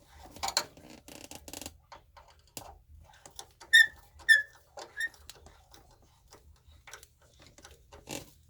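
Three short, high squeaks about half a second apart, a few seconds in, among light clicks and knocks as the water heater's valve and fittings are handled.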